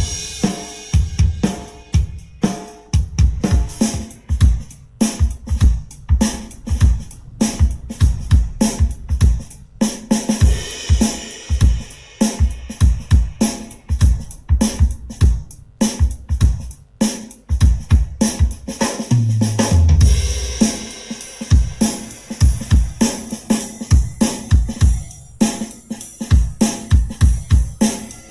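A drum-heavy music track played through a JBL Xtreme 3 portable Bluetooth speaker as a sound test: a steady beat of kick drum, snare, hi-hat and cymbals. About two-thirds of the way through, a deep bass note sounds and drops in pitch.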